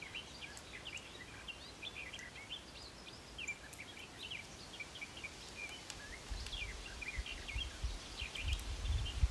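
Small birds chirping in a busy chorus of quick, short calls, with a low rumble building in the last few seconds.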